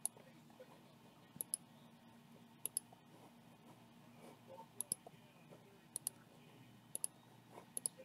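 Computer mouse clicking: faint sharp clicks, some in quick pairs, every second or so.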